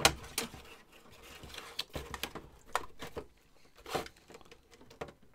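Handling noise from a CD-ROM drive being shifted in a computer case while its cable connectors are worked: scattered clicks and knocks of plastic and metal, with the loudest knock right at the start.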